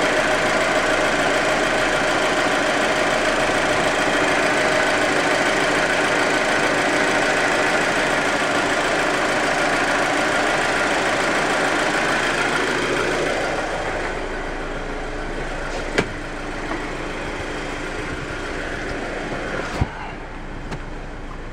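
Audi A4 2.0T's turbocharged four-cylinder engine running steadily at idle. About two-thirds of the way through, the sound drops in level and grows duller, and two sharp clicks come near the end.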